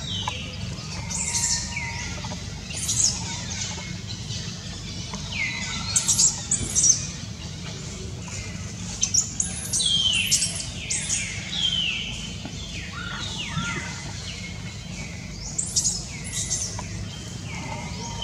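Baby macaque crying: repeated shrill, high squeals that slide down in pitch, coming in clusters with short gaps, the loudest in the middle of the stretch.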